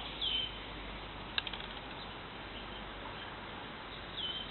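Quiet forest ambience with two short high chirps, one just after the start and one near the end, and, about a second and a half in, a single sharp click followed by a few quick fainter ticks.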